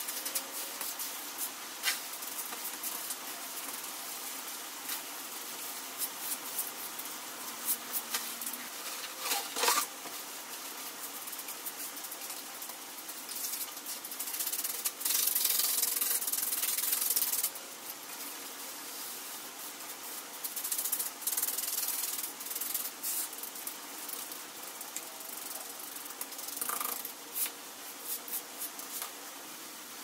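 A hand trowel scraping and pushing wet concrete in gritty rubbing strokes, many short and irregular. Just past the middle comes a louder, steady scrape lasting about three seconds.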